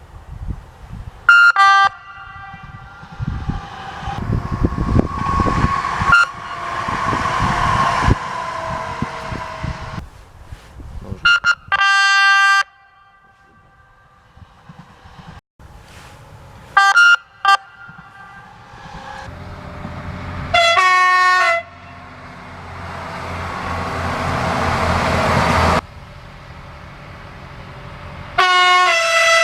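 A series of train horn blasts, about ten in all, each a chord of several steady tones: short toots, some in pairs, and a few held for about a second. Between the blasts comes the rumble of trains passing.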